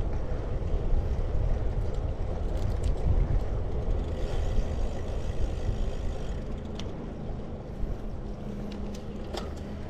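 Wind and road noise while riding a road bicycle: a steady low rumble. A faint steady hum comes in about halfway through, and there are a couple of light clicks in the second half.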